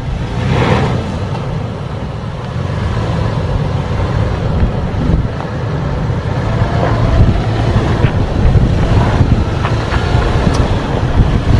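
Toyota 4Runner's 4.0-litre V6 running at low speed as the SUV crawls over a rough dirt trail, with wind rumbling on the microphone.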